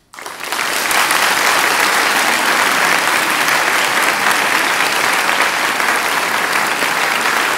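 Audience applauding: the clapping breaks out suddenly right at the start, then holds loud and steady.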